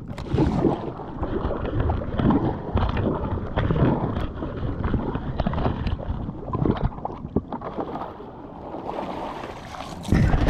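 Double-bladed kayak paddle dipping and pulling through the sea, stroke after stroke, with water splashing and dripping off the blades and sloshing along the kayak hull.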